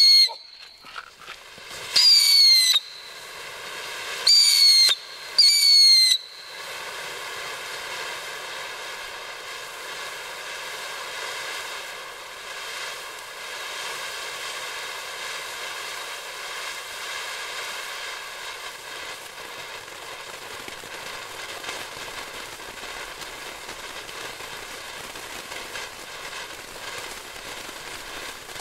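Pyrogiochi Effetto Sonikolor firework fountain giving a series of loud whistles about every two seconds over the first six seconds, each dropping slightly in pitch. Then it sprays with a steady hiss until the end.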